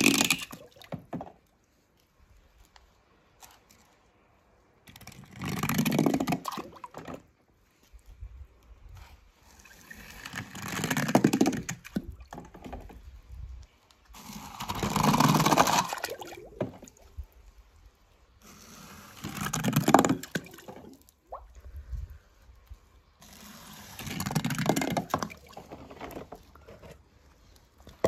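Water splashing and sloshing in about six separate bursts of one to two seconds each, some four to five seconds apart.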